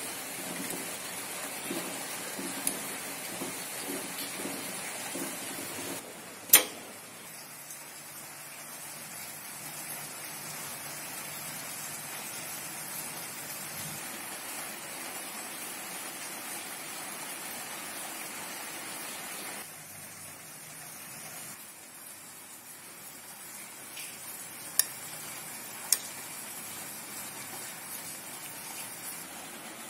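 Water boiling in a stainless steel saucepan of potatoes, bubbling while a fork prods the potatoes. After about six seconds comes one sharp knock, then a softer steady hiss with faint handling as the boiled potatoes are peeled and cut by hand, and two sharp clicks near the end.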